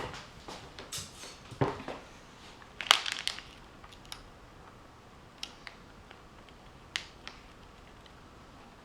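Scattered clicks and taps from small tools and parts being handled during tablet button soldering work. A cluster of taps comes in the first few seconds, the loudest about three seconds in, then a few lighter ticks.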